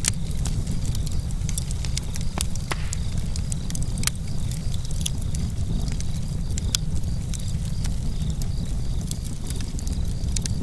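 Open campfire burning, with frequent sharp crackles and pops from the wood over a low steady rush of the flames, and crickets chirping steadily in the background.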